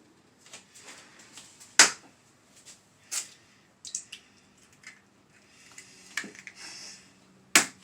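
Eggs being tapped and cracked against a drinking glass: a run of sharp clicks and knocks, with the two loudest cracks about two seconds in and near the end.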